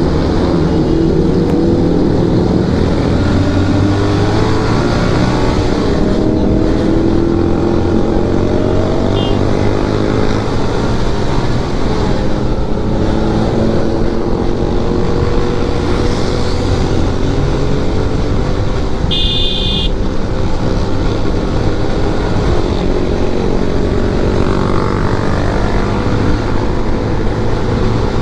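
Motorcycle engine running while riding, its pitch rising and falling with the throttle, over steady wind and road noise. A brief high-pitched beep sounds once about two-thirds of the way through.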